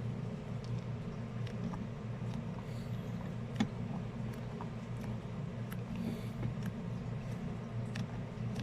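A steady low hum with scattered small clicks and taps of hardware being handled, one sharper tap a little past halfway.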